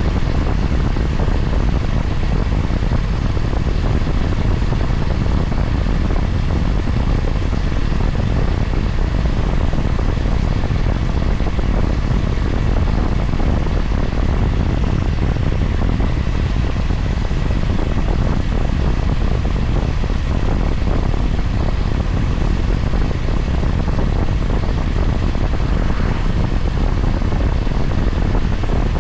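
Honda GB350's air-cooled single-cylinder engine running steadily while the motorcycle cruises, under a constant low rumble of riding noise.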